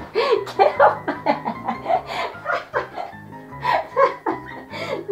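Background music with a steady bass line, over a woman laughing in short, repeated bursts.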